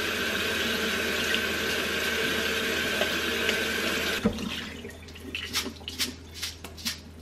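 Kitchen faucet running water through rice in a fine-mesh strainer over a stainless steel sink, a steady rush that shuts off about four seconds in. After it comes a run of light knocks, about two a second.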